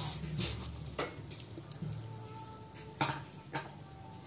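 Light handling sounds around a ceramic serving bowl of fried vermicelli: a few short clicks and clinks, about a second in and again around three seconds in, as fingers sprinkle crispy fried shallots over the noodles.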